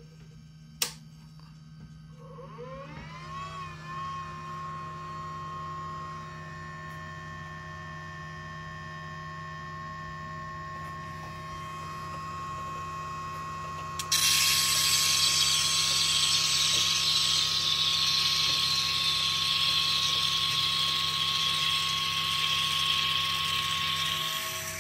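Benchtop wire EDM machine starting up: a click, then the wire feed motor spins up with a rising whine and settles into a steady whine over a low hum. About 14 seconds in, a loud steady hiss starts abruptly and carries on until just before the end.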